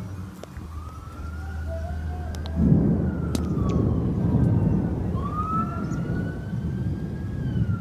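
A siren wailing slowly up and down, two long sweeps, while a loud low rumble of thunder sets in about two and a half seconds in and carries on.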